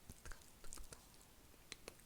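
ASMR mouth sounds close to the microphone: a few soft, spaced-out wet clicks and smacks of lips and tongue against a quiet background.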